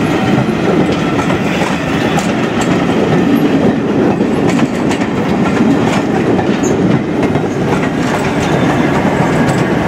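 A rake of railway passenger coaches rolling past along a station platform: a steady loud rumble of wheels on track, with irregular clicks as the wheels pass over rail joints.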